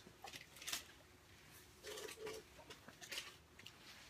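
Faint handling noise: clothing rubbing against the phone, with a few short scrapes and clicks scattered through.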